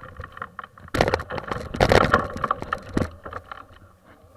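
Mountain bike tyres crunching and crackling over a gravel track as the bike rolls to a stop, loudest from about one to three seconds in.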